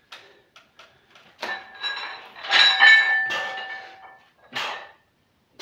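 Iron weight plates on a 64 kg barbell clanking and ringing as the bar is lifted from the floor and brought up overhead, the ringing dying away after a couple of seconds. A short sharp sound follows near the end.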